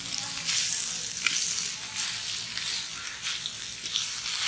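Shredded vegetables and mutton sizzling in a large kadai while a perforated ladle stirs and tosses them, scraping and swishing through the mix in repeated strokes over the steady frying hiss.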